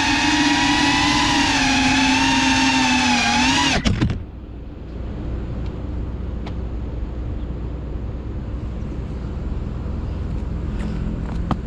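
FPV quadcopter's motors and propellers whining steadily from the onboard camera, the pitch sagging a little, then a short knock at about four seconds as the drone touches down and the motors cut out. Only faint outdoor background follows.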